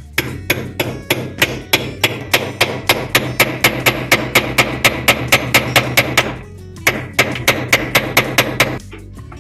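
Hammer striking the washing machine's drum assembly in a rapid, even series of blows, about four to five a second, pausing briefly about six seconds in and then resuming for a couple more seconds: knocking the jammed inner drum loose.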